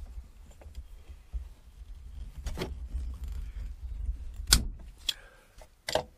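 Hand PEX pipe cutter being squeezed shut on half-inch PEX water pipe until it snips through, heard as handling rumble and a few sharp clicks and snaps. The loudest snap comes about four and a half seconds in.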